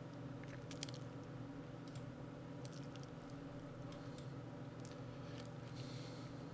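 Quiet room tone: a low steady hum with a few faint, scattered clicks.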